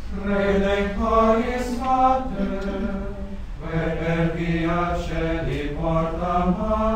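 Intro music of chanted singing, like church plainchant: voices holding long notes that step from one pitch to the next.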